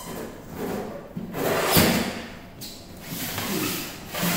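Metal tool case scraping and sliding across a hard floor as it is turned around, with knocks; the loudest scrape comes a little under two seconds in.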